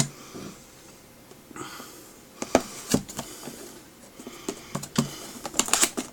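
Boxed contents being handled: light clicks and knocks of small plastic items and cables, with a short rustle of packaging about a second and a half in and a quick cluster of clicks near the end.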